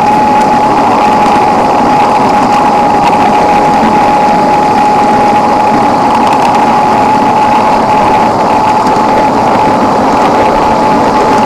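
Ride-on 7½-inch-gauge model of a Virginian EL-3a electric locomotive running along the track: a steady, loud running noise of its electric drive and wheels on the rails, with a constant whine held at one pitch.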